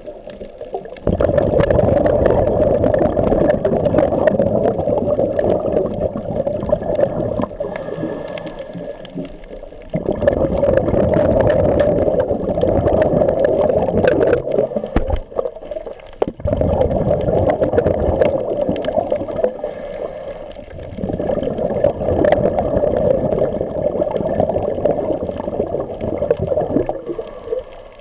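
Muffled underwater rushing and gurgling of water and air bubbles, heard through a submerged camera. It comes in four long surges that each start abruptly and last several seconds, with quieter gaps between.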